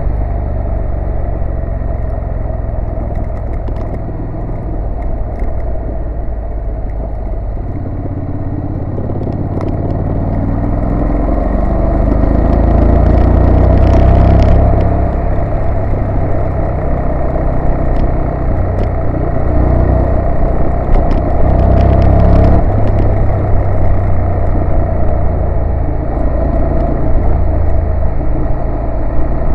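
A Honda NC750S motorcycle's parallel-twin engine running under way, mixed with road noise. Near the middle the engine pulls harder, rising in pitch and loudness, then eases off.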